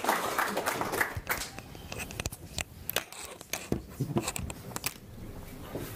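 Audience applause tailing off in the first second or so, followed by scattered clicks, knocks and rustles of people handling things in a small lecture room.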